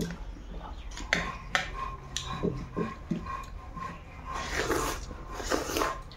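Close-up eating by hand: fingers working rice on a steel plate with a few sharp clicks, then a mouthful taken and chewed with smacking mouth sounds, loudest in two stretches near the end.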